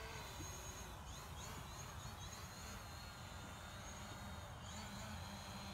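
DJI Mavic Pro quadcopter flying at a distance, its propellers giving a faint, steady high whine that wavers slightly in pitch, over a low, even rumble.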